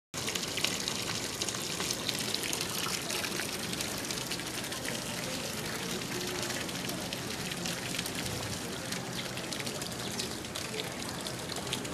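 Koi pond water trickling and splashing steadily, a continuous light patter of small splashes.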